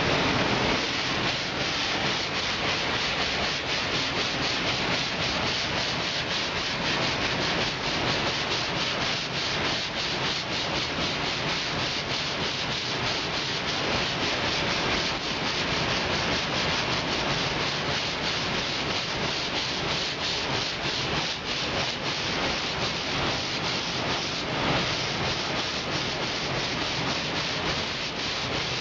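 Sanding on a car fender: a steady, continuous abrasive rubbing.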